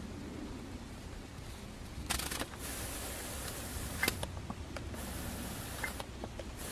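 Faint rustling hiss with a few small clicks and taps, the clearest click about four seconds in.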